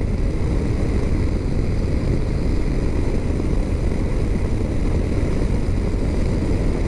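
Steady wind rush and engine drone of a BMW R 1250 RT boxer-twin motorcycle riding at road speed, with wind buffeting the microphone.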